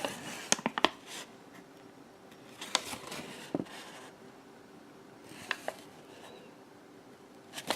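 Handling noises of small objects: a few sharp clicks in quick groups, about half a second in, around three seconds, five and a half seconds and near the end, with short rustles and scrapes between.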